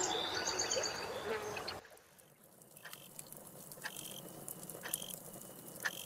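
Jungle ambience of birds calling and chirping, which cuts off abruptly about two seconds in. After that, in a much quieter background, a single short high chirp repeats about once a second.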